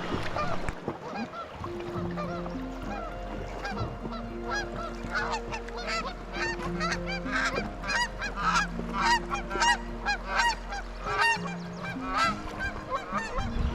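A flock of geese honking, many overlapping calls that build up and are densest in the middle of the stretch, over soft background music with long held notes.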